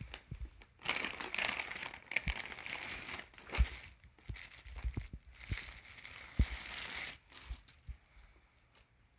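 Clear plastic packaging bags crinkling and rustling as packed clothes are handled and pulled out, with a couple of short thumps. The rustling dies down near the end.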